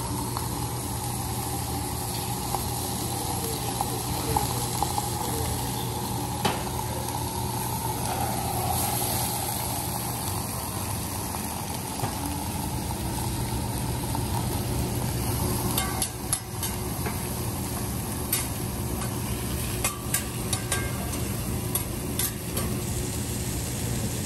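Food sizzling on a steel teppanyaki griddle over a steady low hum, with a scatter of short sharp metallic taps and clicks in the second half.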